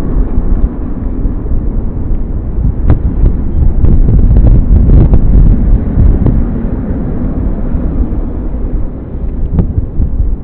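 Loud, low rumbling noise, strongest around the middle, with a few faint clicks scattered through it.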